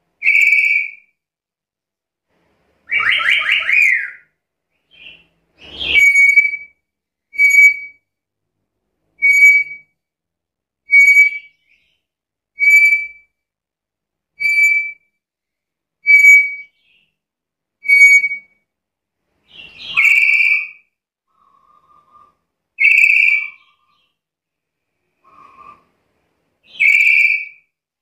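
Black-capped lory calling in shrill whistles: a longer, wavering call near the start, then a run of eight short, clipped whistles about every second and a half, then a few longer whistles with faint lower notes between them.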